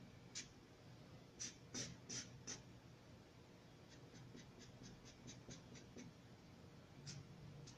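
Black felt-tip marker drawing short strokes on paper, faint. There are a few separate scratches in the first three seconds, then a quick run of fainter hatching strokes at about five a second, and two more strokes near the end.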